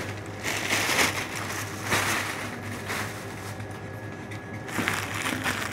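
Thin plastic carrier bags rustling and crinkling in irregular bursts as groceries are handled and packed.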